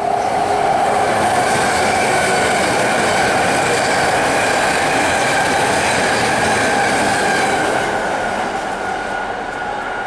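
A BART rapid-transit train passing close by: a loud, steady rush of wheels on rail with a sustained high-pitched whine, easing off slightly near the end.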